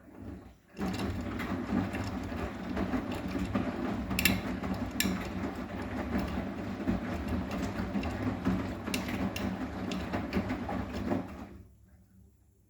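Arçelik 9120M washing machine's drum turning for about ten seconds, tumbling wet laundry, with a few sharp clicks, then stopping: one rotation of the wash cycle.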